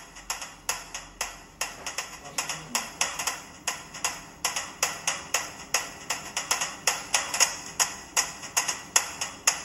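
Music with a steady, sharp clicking beat, about three clicks a second, getting gradually louder.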